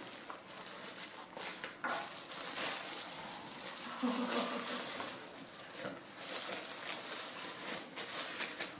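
Plastic bag crinkling and rustling on and off as a pair of shoes is bundled into it by rubber-gloved hands.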